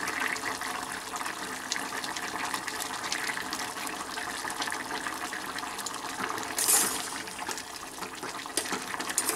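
Potato curry bubbling at a simmer in a steel pot on a gas stove, a steady liquid sound with scattered small clicks. A brief louder burst comes about six and a half seconds in as the curry is stirred.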